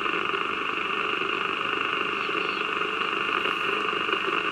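Steady hiss of band noise from an AnyTone CB radio's speaker on upper sideband, with no station transmitting on the channel.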